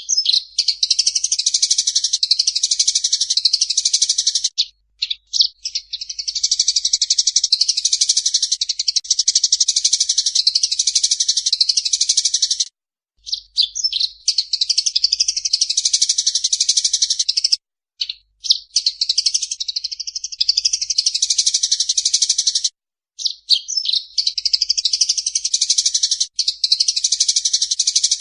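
Eurasian tree sparrows chirping rapidly and densely, the excited chatter of sparrows fighting. Four short breaks split the chatter into bouts of about four to seven seconds.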